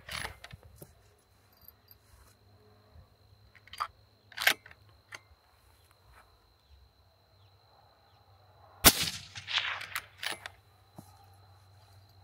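Suppressed 6.5 Creedmoor bolt-action rifle, with a SilencerCo Harvester Evo suppressor, firing one shot about nine seconds in; the report trails off in echoes for over a second. Two sharp clicks come about four seconds in.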